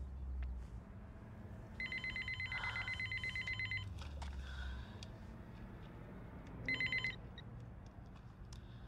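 Telephone ringing with a rapid trilling ring: one ring about two seconds long starting near two seconds in, then the start of a second, brief ring near seven seconds.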